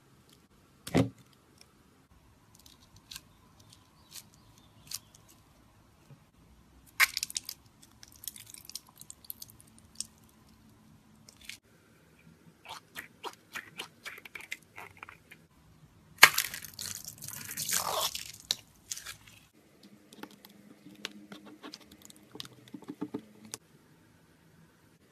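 Scissors snipping into rubber stress balls and their goo filling being squeezed out into a bowl: a sharp snip about a second in, then wet squishing, crackling and dripping, loudest for a few seconds a little past the middle.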